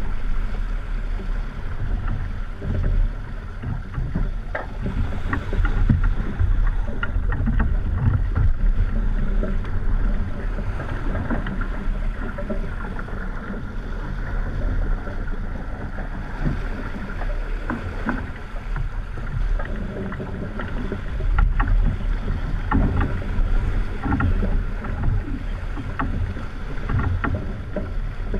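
Wind buffeting the microphone and water rushing and slapping along the hull of a racing sailboat heeled under sail in choppy water. Short knocks and splashes are scattered throughout.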